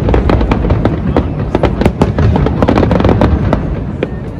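Fireworks display: a rapid, irregular run of bangs and crackles over a steady low rumble.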